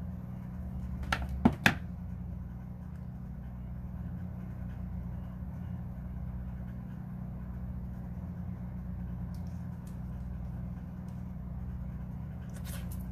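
A steady low hum, with three sharp clicks about a second and a half in and a few more just before the end.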